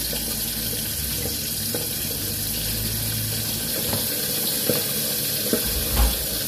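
Steady sizzling hiss of fish frying in oil in a lidded pan on a gas stove, with a few light clicks and a soft bump near the end.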